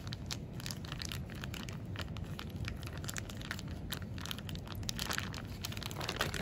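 A plastic zip-top bag crinkling and crackling irregularly as fingers knead and mash strawberries inside it.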